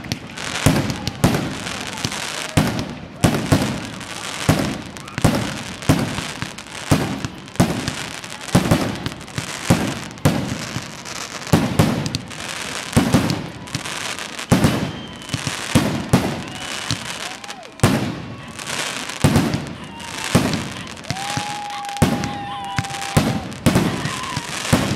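Aerial firework shells bursting at close range in quick succession, a loud bang about every second or so, each followed by crackling. A steady whistle sounds near the end.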